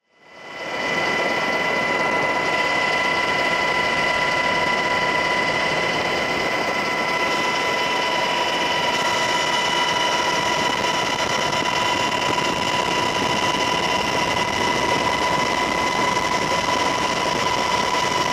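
Steady aircraft cabin noise: an engine drone with a steady high whine. It fades in over the first second and cuts off sharply at the end.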